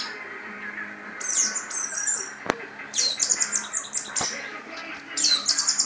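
Orange-headed thrush (anis merah) singing in three bursts of rapid, high warbling notes, with two sharp clicks between them.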